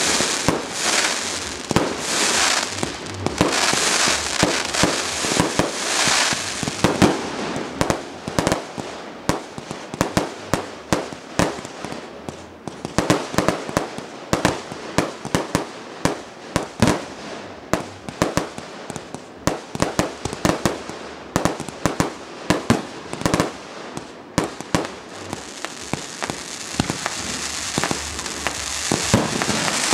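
A fireworks display going off. It starts with a hiss that swells about every two seconds, then turns into a long, dense run of sharp bangs, often several a second. Near the end it goes back to a steady hiss.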